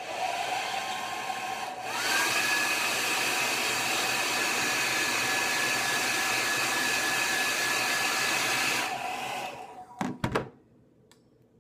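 Handheld hair dryer blowing on a fingertip to warm a nail wrap, loud. About two seconds in it switches to a higher setting, its whine rising in pitch and getting louder. After about seven seconds it is switched off and winds down, and a few knocks follow as it is set down on the table.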